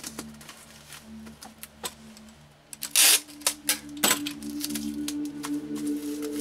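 Strapping tape torn off a handheld tape gun in one short, loud rip about three seconds in, among scattered crinkles and taps as plastic stretch wrap is handled and the tape pressed down.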